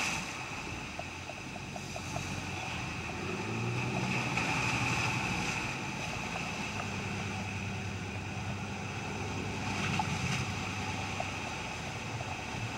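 Motorboat's engine running steadily under way as a low drone, with wind and water rushing past the hull in choppy sea.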